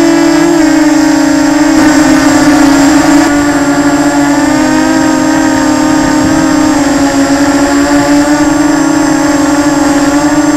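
An FPV quadcopter's electric motors and propellers, a loud steady buzz heard from the camera on the craft, its pitch wavering slightly as the throttle changes.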